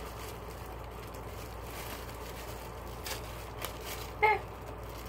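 Faint crinkles and rustles of plastic packaging being handled as squishy toys are pulled out, a few soft clicks in the second half, over a steady low hum; a brief vocal sound about four seconds in.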